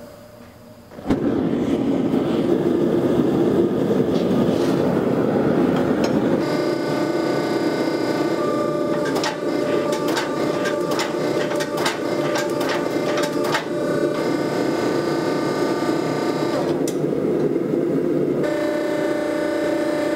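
Propane gas forge lit about a second in, its burner starting with a sudden steady roar. From about six seconds a hydraulic forging press runs over it: a steady pump whine with sharp clicks as it squeezes the hot ball-bearing billet, briefly dropping out near the end.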